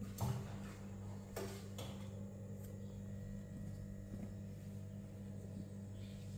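Two cats play-fighting: a few short thumps and scuffles in the first two seconds as they tussle against a wooden shelf, then quieter scuffling as they wrestle on a tile floor, over a steady low hum.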